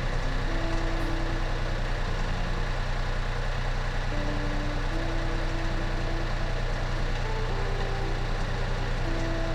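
Daihatsu Xenia 1000's three-cylinder petrol engine idling steadily, test-run after its throttle body and idle speed control valve have been cleaned and refitted.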